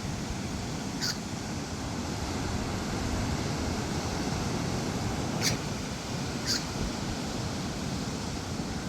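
Steady rush of ocean surf and wind, with three short high bird calls: one about a second in and two more a second apart near the middle.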